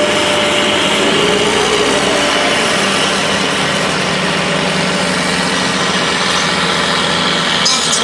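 Pulling tractor's engine running loud and steady, with small rises and falls in pitch.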